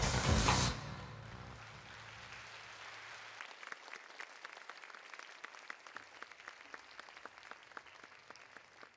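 Audience applause at the end of a taiko drum performance. A loud final moment of sound dies away within the first second, and the clapping then thins into scattered, separate claps that fade out.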